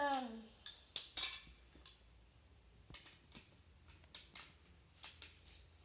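Plastic Lego bricks clicking and clacking as a child handles them and fits them together, in scattered single clicks about every half second. It opens with the tail of a child's voice sliding down in pitch.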